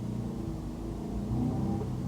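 A car driving on a road: a low engine hum and road rumble, the engine note shifting a little in pitch.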